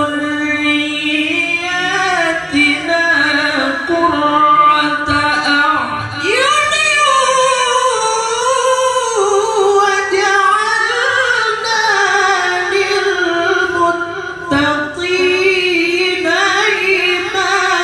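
A young male qari reciting the Qur'an into a microphone in a high, ornamented melodic voice: long held phrases whose pitch winds up and down, with a few short breaks for breath.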